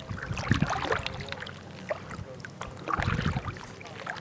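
Kayak paddle strokes: two splashing strokes in the water about two and a half seconds apart, with small drips and water sounds between them.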